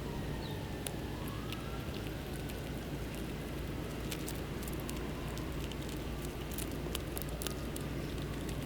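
Outdoor winter ambience: a steady low rumble with many small, sharp ticks scattered through it. A faint distant siren wavers in pitch during the first second or so.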